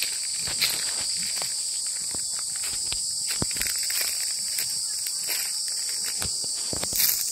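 Steady high-pitched insect chorus, with irregular footsteps on dry fallen leaves.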